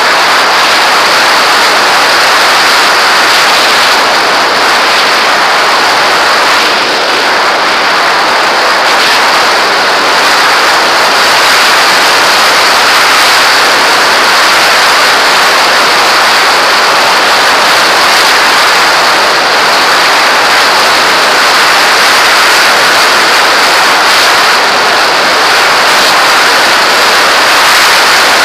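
Loud, steady rush of air over a camera mounted on a radio-controlled glider in flight: wind noise from the glider's speed through the air.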